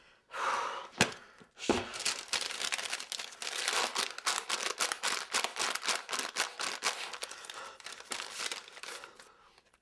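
A small paper packet being torn open and crumpled in the hands, with two sharp cracks about a second in, then rapid crinkling that fades near the end.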